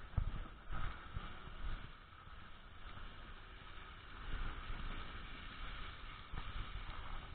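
Steady rumble of a vehicle driving along a snow-covered road, heard from inside the cab, with low thumps from bumps in the first two seconds.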